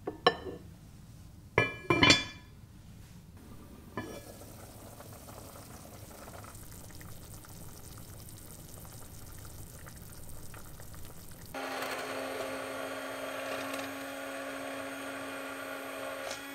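Metal-on-pot clanks as a lid is handled on a cast-iron cooking pot, loudest about two seconds in, then a soft steady hiss of soup simmering. About eleven and a half seconds in, an immersion blender starts and runs at a steady pitch, puréeing the carrot soup.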